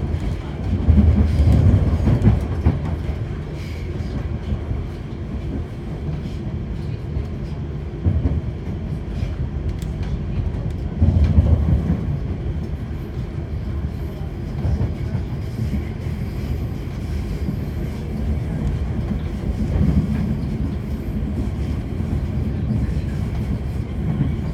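A commuter train running at speed, heard from inside the carriage: a steady low rumble of wheels on rail with faint clicks. The rumble swells louder about a second in and again about halfway through.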